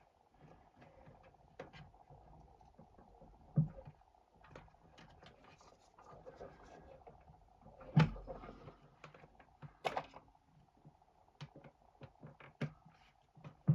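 Tools and small hardware being handled and put down: scattered clicks and knocks, the loudest thump about 8 seconds in, over a faint steady hum.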